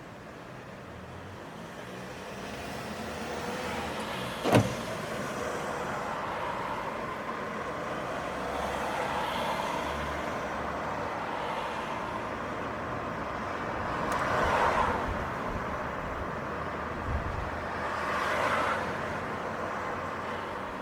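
City street traffic: cars passing with engine and tyre noise, two swelling past about two-thirds of the way through and near the end. A single sharp knock, the loudest sound, comes about four and a half seconds in.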